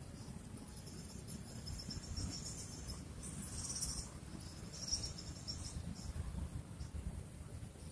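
Insects trilling high-pitched in short bouts, over a steady low rumble.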